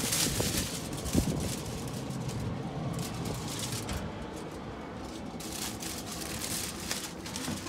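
Aluminium foil crinkling and crackling in bunches as it is folded around a rack of smoked beef short ribs, with a single thump about a second in, over a low steady rumble.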